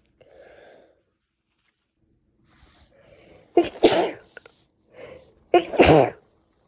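A woman with a head cold sneezing twice, about two seconds apart. Each loud sneeze comes after a short, quieter in-breath.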